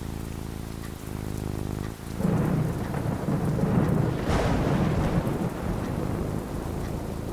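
Steady rain falling, with a thunderclap about two seconds in: a low rumble that swells to a sharper crack near the middle, then rolls away.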